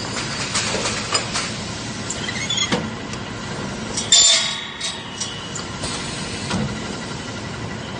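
Factory machinery running steadily with repeated metallic clanks and knocks of metal parts being handled; the loudest clank, ringing briefly, comes about four seconds in.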